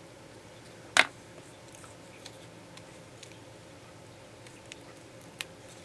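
A plastic glue pen set down on the table with one sharp click about a second in, then a few faint light ticks as small paper die-cut pieces are handled.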